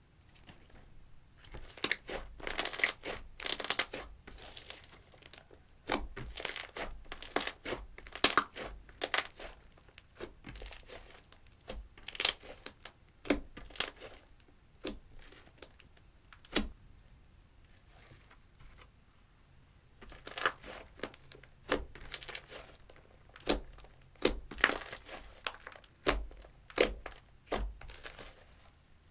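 Slime with eyeshadow mixed in, being stretched, squeezed and pressed by hand, giving bursts of sticky crackling and popping. There is a quieter spell about two-thirds through.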